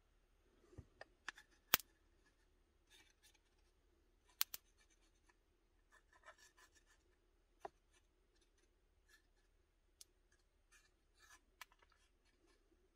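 Faint scratching and handling sounds with several sharp small clicks: the metal nozzle of a tube of dielectric grease dabbing and rubbing on the copper contacts and plastic body of a car's blower fan-speed switch plate.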